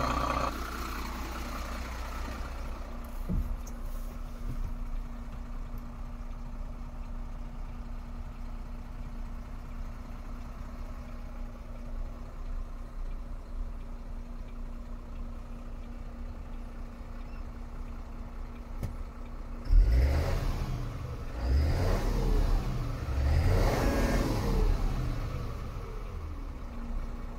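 MAN TGM 18.340 truck's six-cylinder diesel idling steadily, heard from inside the cab. About twenty seconds in, it is revved several times in neutral, each rise in revs dropping back to idle.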